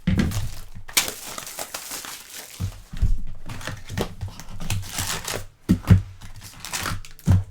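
Plastic wrapping on a trading-card hobby box being crinkled and torn open, with a few dull knocks near the end as the box is handled.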